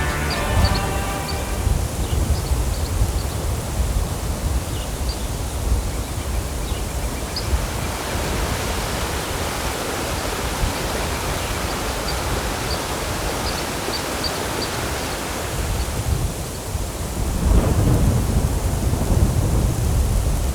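Steady rain with deep rolling thunder, a louder rumble of thunder swelling about three-quarters of the way through. Music fades out in the first moments.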